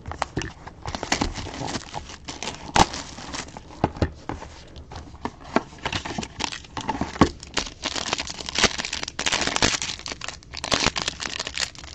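Foil trading-card pack wrapper crinkling and tearing as it is opened by hand: an irregular run of crackles and rustles, busiest and loudest near the end.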